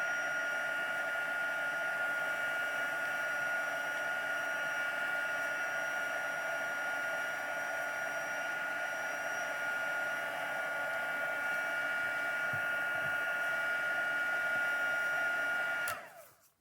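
Craft heat gun blowing steadily with a high whine as it dries damp paper. It is switched off near the end, and the whine slides down as the fan spins down.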